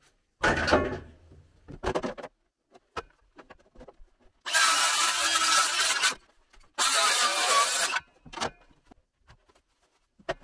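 Makita cordless circular saw cutting through a wooden board in two runs, about a second and a half and then about a second long, after a loud knock of the board being handled about half a second in.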